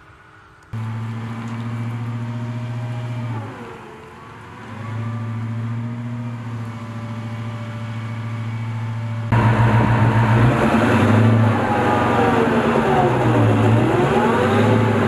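M2 Bradley fighting vehicle's diesel engine running steadily, its pitch dipping and rising as the vehicle drives. The sound starts abruptly just under a second in and gets louder about nine seconds in.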